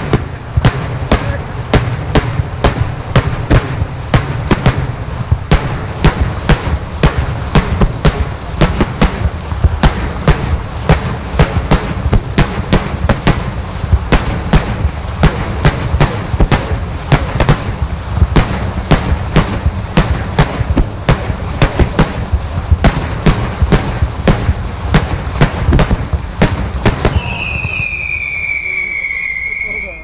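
Daylight fireworks: aerial salutes going off in a rapid, unbroken string of loud sharp reports, several bangs a second, over a continuous low rumble. Near the end the bangs stop and a high whistle sounds for about three seconds, its pitch sliding slightly down.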